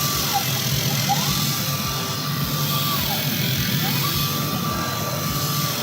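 Mobile-screen scratch-repair polishing machine running: a motor whine rises, holds steady and falls again about every three seconds, over a continuous low hum.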